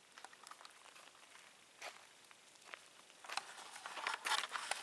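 Footsteps crunching on a gravel road: faint and sparse at first, then louder and closer together from about three seconds in.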